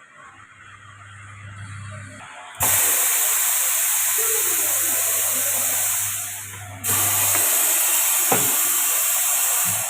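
Compressed air hissing loudly from a pneumatic tire changer in two long blasts, the first starting abruptly a few seconds in and fading, the second cutting in right after and stopping near the end, with a single click in the middle of the second.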